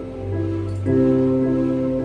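Yamaha electronic keyboard played with both hands: held chords over low bass notes, changing chord about a quarter second in and again about a second in.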